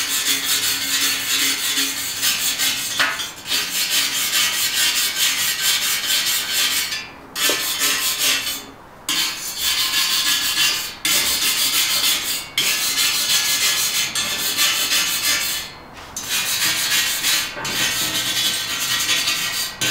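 Hand wire brush scrubbed quickly back and forth over flux-core welds on a steel tube frame, stripping off the brown slag. A steady rasping scratch in spells, broken by several short pauses.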